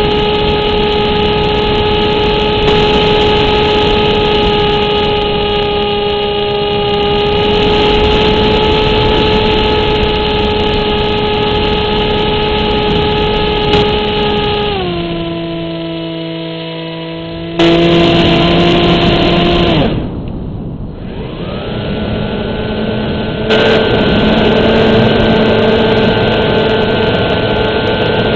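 Motor and propeller of a Versa RC plane, heard from a camera on board over wind rush: a steady pitched drone that drops in pitch about halfway through as the throttle is eased. It cuts out briefly about two-thirds of the way in, then comes back at a higher pitch.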